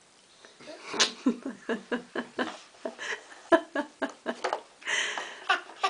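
A toddler babbling in a quick run of short syllables after about a second of quiet, with a breathy hiss about five seconds in.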